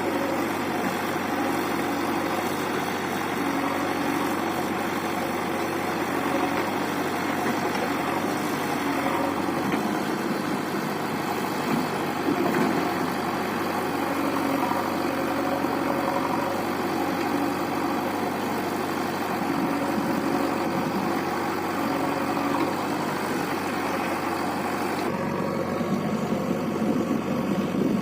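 Diesel engines of a tractor and a JCB backhoe loader running steadily at low revs while mud is loaded into the trolley. The sound shifts abruptly a few seconds before the end.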